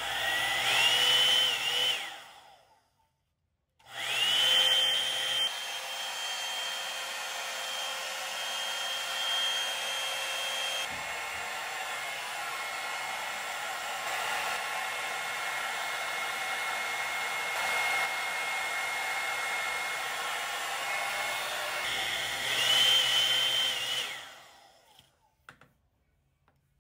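Hot-air hair styling tool's blower switched on with a quick rising whine that settles into a steady high tone over rushing air. It stops after about two seconds, then starts again and runs steadily for about twenty seconds. Near the end it rises once more before winding down.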